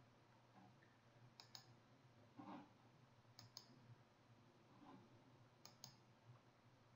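Faint computer mouse clicks, three quick pairs about two seconds apart, over a low steady hum.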